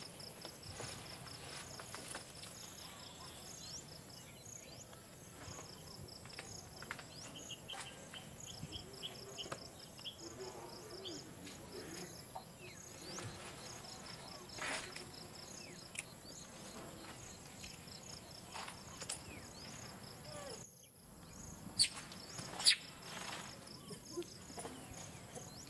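Insects chirping in a steady, evenly repeated high-pitched pattern over faint outdoor ambience. Two sharp clicks stand out near the end.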